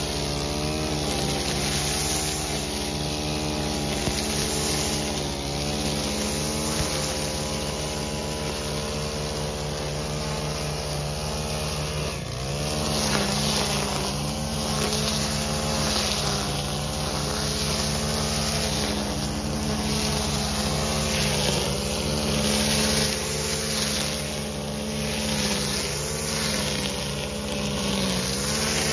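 String trimmer engine running at high revs, its line cutting through thick, tall grass. The engine pitch wavers slightly as it works, and dips briefly and climbs back about halfway through.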